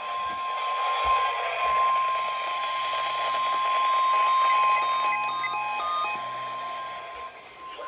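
A single steady alert tone of about 1050 Hz, the warning alarm tone sent before a weather-radio alert, held throughout and cutting off right at the end, over a hiss of radio noise.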